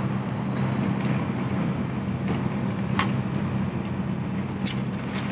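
Handheld electric heat gun running with a steady low hum while PVC pipe is heated to soften it for bending. A light tick sounds about three seconds in.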